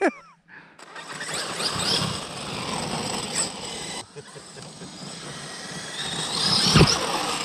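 Large electric RC buggy running over the ground, a rough rising-and-falling tyre and drivetrain noise, with one heavy thump near the end.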